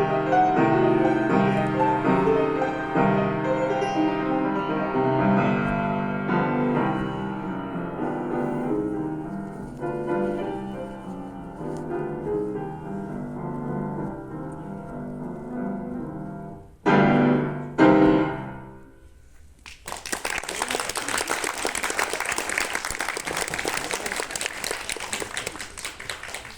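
Solo piano playing classical music that ends on two loud final chords about three seconds apart, each left to ring and fade. A few seconds later an audience breaks into applause.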